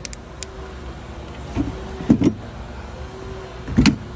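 A few dull knocks, the last one the loudest, as tools are handled and set down, over a steady low hum.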